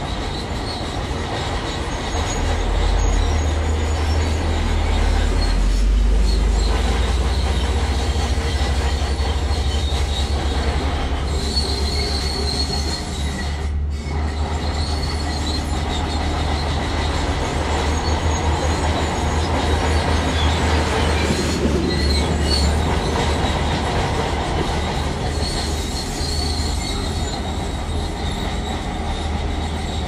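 Crawler bulldozer working, its diesel engine a deep steady rumble under a high metallic squeal and clatter from the steel tracks.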